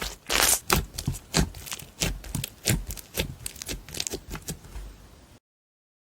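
Slime being squished and pressed by hand: a run of irregular sticky pops and crackles, a few a second, growing fainter, then the sound cuts off abruptly a little after five seconds in.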